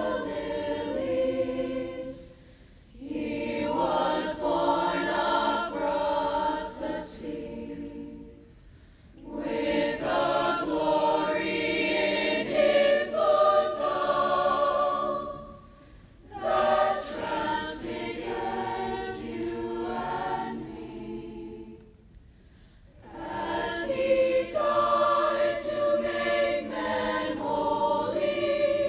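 School choir singing a song in long phrases, with short pauses between them about every six to seven seconds.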